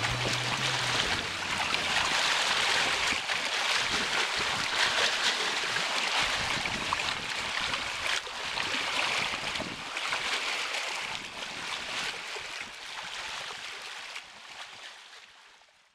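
Waves washing, an even hiss that swells and eases, fading out over the last couple of seconds. A held low chord from the music ends about a second in.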